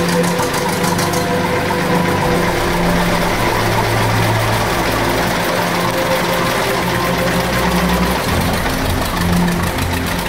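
Engines of several vintage tractors running as they drive slowly past one after another, a steady chugging whose note changes about eight seconds in as the next tractor comes close.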